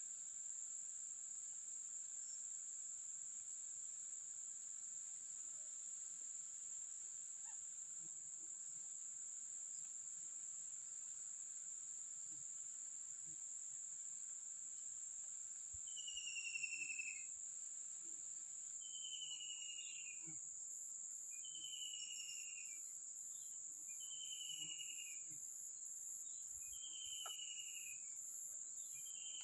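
Steady high-pitched drone of insects such as crickets or cicadas. From about halfway, a short falling whistled call repeats about every two seconds.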